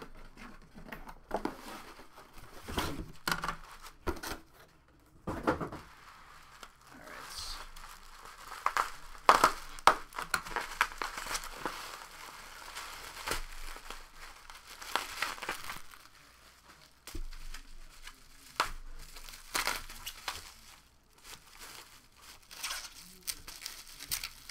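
Plastic wrapping on a trading-card box crinkling and tearing in irregular bursts as the box is unwrapped and opened.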